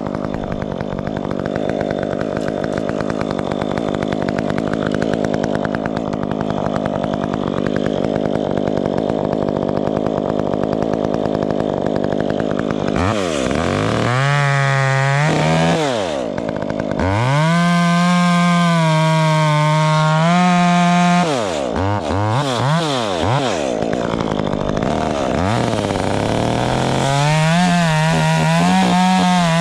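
Chainsaw cutting wood under load for about thirteen seconds, then running at high revs out of the cut, the throttle let off and opened again several times.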